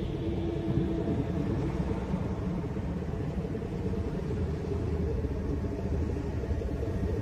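Deep, steady rumbling drone with a few faint held tones above it: an ambient 'space sound' track, electromagnetic signals converted into audible sound.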